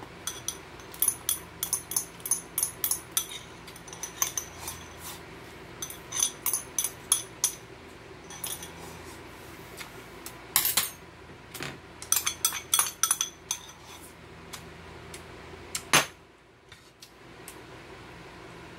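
Thin metal chopsticks clinking and scraping against a bowl in quick runs of taps, with a sharp louder knock near the end.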